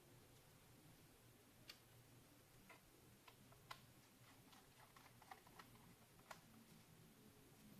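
Faint, irregular small clicks and light taps, about a dozen, of hands and small tools working on a laptop's casing and parts.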